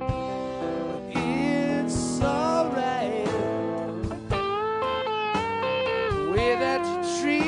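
Band playing a slow blues-rock ballad: a man singing over electric guitar with bent, sliding notes and a steady band backing.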